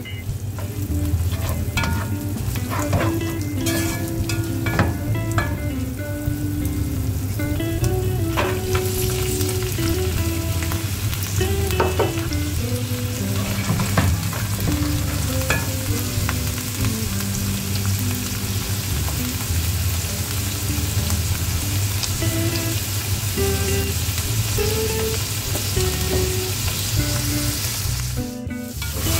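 Minced meat and split peas frying in hot oil in a nonstick pan, sizzling steadily while a spatula stirs and scrapes them, with scattered light clicks of the spatula.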